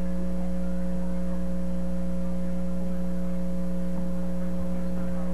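Steady electrical mains hum: a low, unchanging buzz with several overtones.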